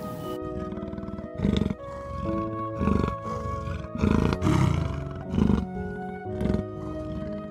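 Leopard giving its rasping, sawing call: a series of harsh grunts, about one a second, over soft background music.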